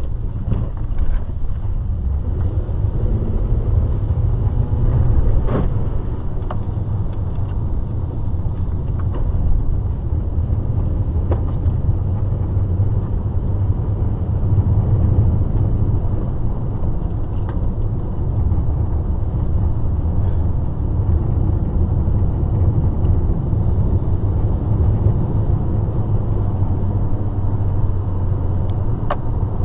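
A car driving: a steady low rumble of engine and road noise, with a few faint clicks.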